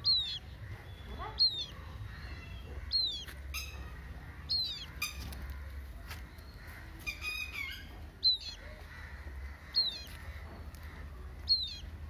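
Red-wattled lapwing chick calling: thin, high peeps, each falling slightly in pitch, repeated about every one and a half seconds, with a quicker run of notes a little past the middle, over a low steady rumble.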